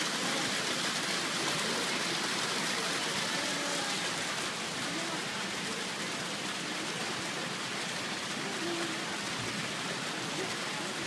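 Steady rush of running water in an otter pool enclosure, with faint voices in the background.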